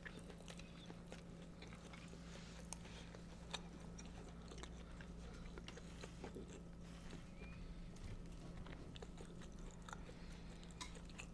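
Faint chewing and small mouth clicks over a low steady hum.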